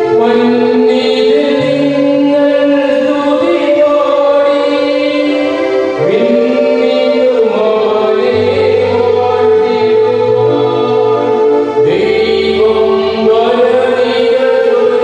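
Church choir singing a liturgical hymn in long held notes.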